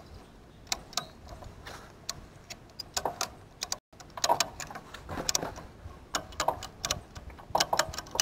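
Ratchet strap buckle being cranked by hand: the pawl clicks over the spool teeth in quick runs of clicks with short pauses between strokes, as the strap is tightened to pull a wire fence taut.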